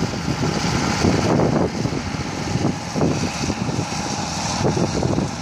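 The SMD-62 V6 diesel engine of an SK-6 Kolos combine, freshly overhauled, running steadily as the combine drives off, with a few irregular louder surges.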